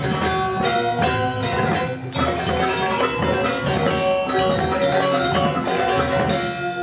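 Balinese gong kebyar gamelan playing: bronze metallophones struck in quick, dense rhythmic figures over ringing sustained tones.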